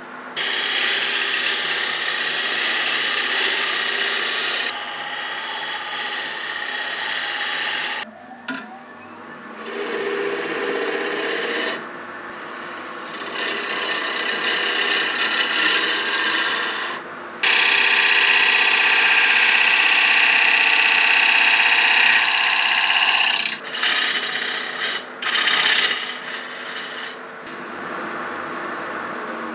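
Tools scraping, rasping and rubbing on wood, a rough hissing noise that cuts abruptly from one take to the next several times.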